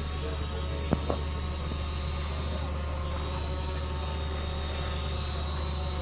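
Steady low machine hum with a faint high whine over it, with two short sharp clicks about a second in.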